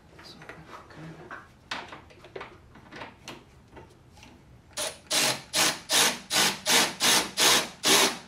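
Cordless ratchet working a fastener in a fast run of short, evenly spaced buzzes, about three a second, starting about five seconds in. Before that, faint clicks and rubbing of parts being handled.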